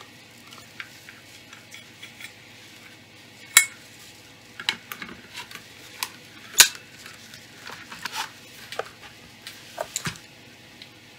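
Irregular clicks and metal clinks from handling a metal-bodied airsoft STG44 replica, with two sharper knocks about three and a half and six and a half seconds in.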